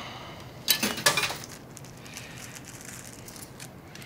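Crinkling of a candy bar's plastic wrapper as it is handled: a few sharp rustles about a second in, then quiet.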